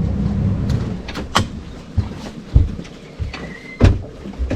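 A boat's outboard motor runs low and steady, then gives way to a few sharp knocks and thumps against the boat as the crab pot is reached.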